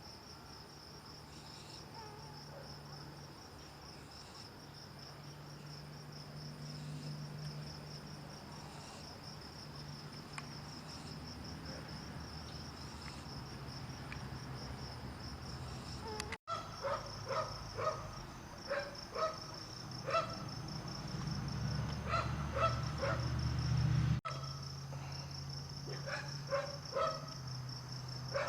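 Crickets chirring steadily in a high, pulsing tone over a low hum. From about halfway, short repeated calls come in many times.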